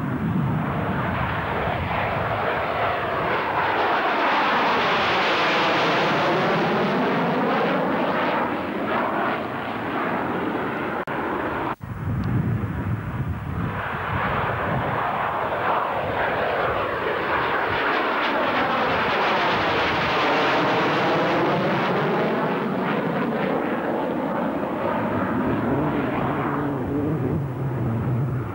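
Jet noise from an F-111's twin TF30 turbofans as it flies by in a display pass, with a swooshing, sweeping tone that rises and falls as it goes past. The sound cuts out briefly about twelve seconds in, then a second pass sweeps by the same way.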